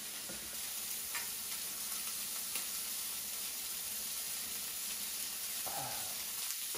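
Food frying in a pan on the cooktop: a steady sizzle, with a few faint clicks.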